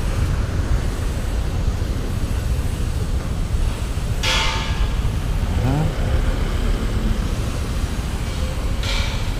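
Motorcycle engine and street traffic, a steady low rumble, with two short, sharp, high-pitched tonal blasts from traffic, about four seconds and about nine seconds in.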